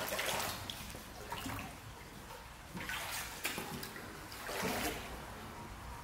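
Shallow stream water trickling, with three splashes: one right at the start, one about three seconds in and one near five seconds.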